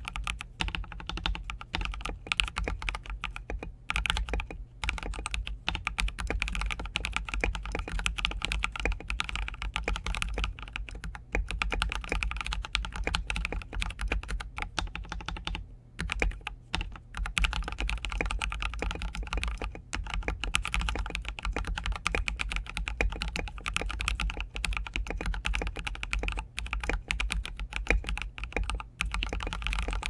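Continuous typing on a customized Ducky SF mechanical keyboard with lubed and filmed Oil King linear switches, SA profile keycaps, switch pads and foam between plate and PCB: a dense, steady stream of keystrokes with a few short pauses.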